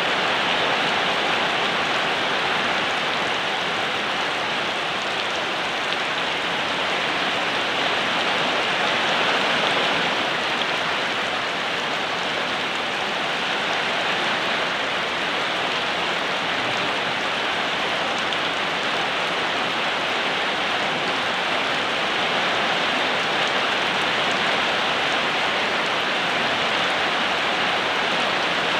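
Steady rain falling, an even hiss that holds at the same level without breaks or distinct drops standing out.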